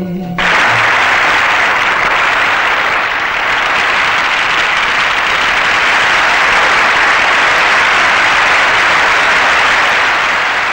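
Old television's static hiss, the white noise of a set with no picture signal, cutting in abruptly about half a second in as the song stops and running on steadily.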